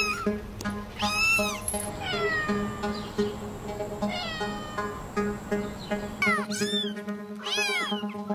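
Cats and kittens meowing, one call after another, over background music with a steady pulsing beat. After about six seconds several short, high mews come in quick succession.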